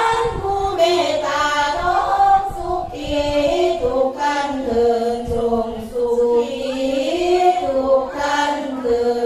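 Women chanting sarapanya, Thai Buddhist devotional verses sung to a slow, gliding melody with long held notes.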